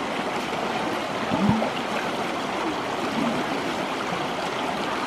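Shallow rocky river flowing steadily, an even rush of water over stones.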